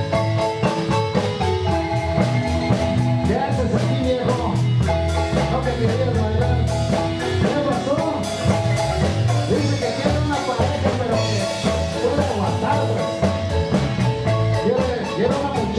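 Guatemalan marimba band playing a lively son for dancing, with the marimba's mallet notes over a steady low beat.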